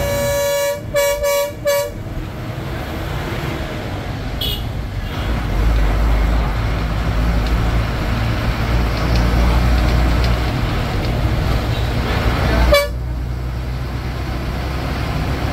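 Bus horn honking in four quick blasts in the first two seconds, and once more briefly near the end, over the steady low rumble of the bus engine heard from inside the cab.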